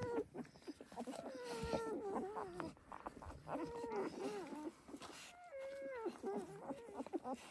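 Young puppies whining, a run of wavering, high-pitched whimpers, one after another.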